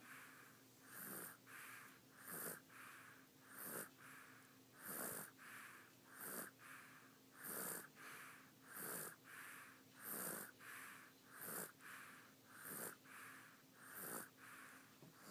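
A sleeping baby snoring faintly, a short snoring breath about every 1.3 seconds in an even rhythm.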